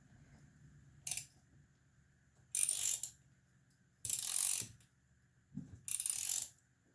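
Hand ratchet wrench clicking in bursts while it turns fasteners out of a Yamaha QT50 engine case: a short spurt about a second in, then three half-second runs of clicking a second or so apart.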